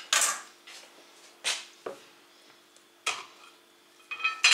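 Crockery and kitchenware clattering: a handful of sharp knocks and clinks, about five in all, the loudest with a short ring near the end.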